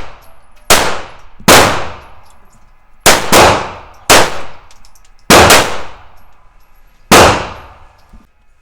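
Gunshots from a firearm at a shooting range: about eight sharp cracks in irregular strings, some in quick pairs, each trailing off in a short echo. The last one comes about seven seconds in.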